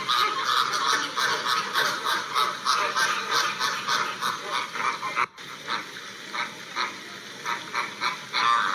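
A flock of flamingos calling: many overlapping short honking calls in a dense chorus, with a brief break about five seconds in.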